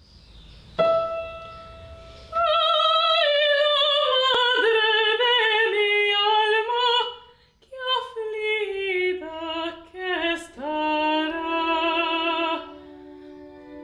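A woman's classical operatic voice singing long held phrases with vibrato, the pitch sliding downward, after a single piano note about a second in. Quieter sustained notes follow near the end.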